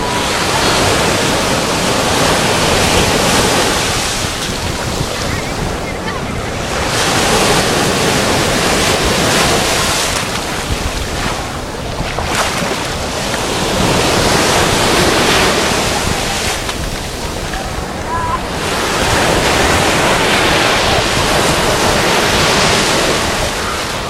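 Small surf breaking and washing up over the sand at the water's edge. It swells and fades in surges about every six seconds, with wind buffeting the microphone.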